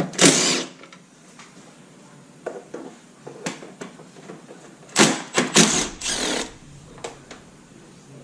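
Cordless drill/driver run in short bursts: once at the start and several times about five to six and a half seconds in, with small clicks and knocks of hand work between.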